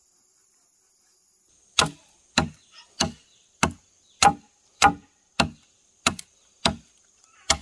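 Steady chopping into wood, about ten sharp blows evenly spaced a little more than half a second apart, starting about two seconds in.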